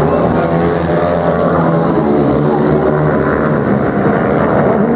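150cc dirt bike engines running hard, their pitch rising and falling as the riders accelerate and ease off through the course, with more than one engine heard at once.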